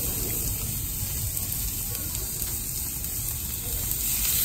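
Fresh squid sizzling steadily on a hot barbecue flat plate, with a second squid laid onto the plate near the end.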